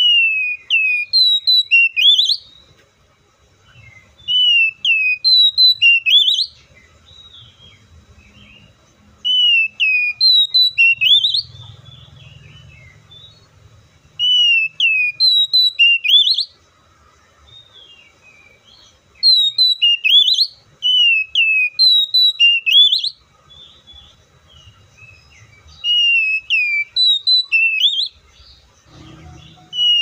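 Oriental magpie-robin singing: bursts of loud, clear whistled notes, each a quick falling slur followed by a rising one, repeated in phrases of two to four seconds with short pauses between.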